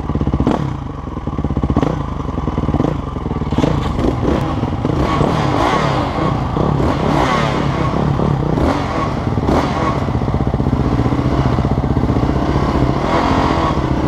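Four-wheeler engine running close to the microphone, revving up and easing off, with clattering knocks as the quad bounces over a rough dirt trail.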